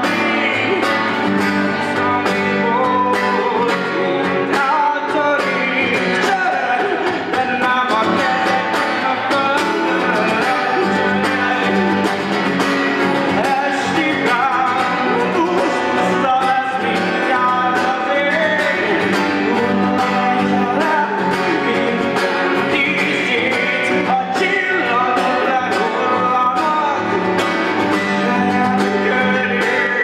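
A man singing in full voice over a steadily strummed acoustic guitar: a live solo acoustic song, voice and guitar together.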